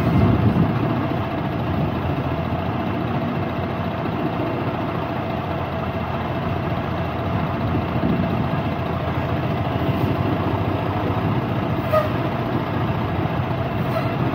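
Semi truck's diesel engine running steadily as the truck rolls slowly, heard from the cab, with a few light clicks in the second half.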